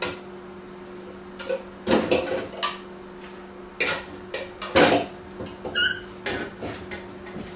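Rummaging in a lower kitchen cabinet: a scattering of knocks and clatters of dishes and the cabinet door as a large bowl is taken out.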